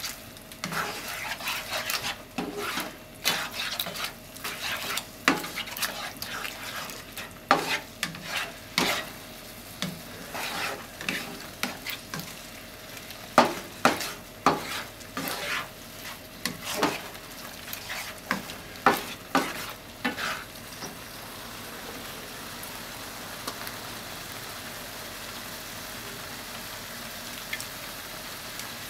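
Spatula scraping and knocking against a nonstick frying pan while stir-frying scrambled egg, tofu and ham, over a steady sizzle. The strokes stop about two-thirds of the way through, leaving only the sizzle.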